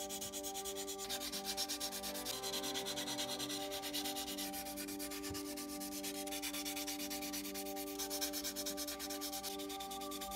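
A small sanding pad rubbed back and forth in steady, rapid strokes over a plastic scale-model car body part, giving a continuous dry sanding sound.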